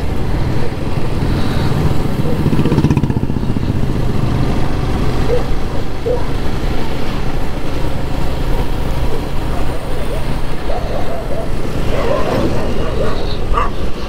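A motorcycle engine running steadily while riding at road speed, with continuous road and wind noise.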